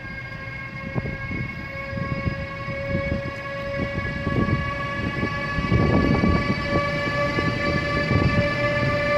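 Siemens Vectron (BR 193) electric locomotive passing close with a freight train. A steady whine of several tones from its traction equipment rises slightly in pitch over a growing rumble and clatter of wheels on the rails. The sound gets louder throughout and is loudest about six seconds in, as the locomotive goes by.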